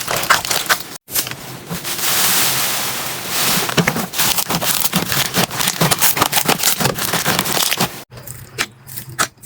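Slime being squeezed and pressed by hand, giving dense crackling and popping, in short clips that cut abruptly about a second in and again near the end.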